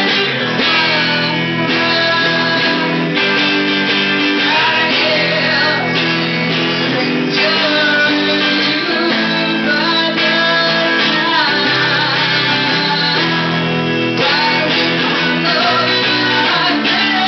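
Live rock song: a woman singing into a microphone while playing an electric guitar, sustained chords ringing under her gliding vocal line.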